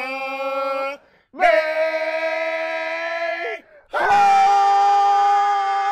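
A man yelling in a mock anime-style power-up scream: three long held cries with short breaks for breath between them, the last the loudest.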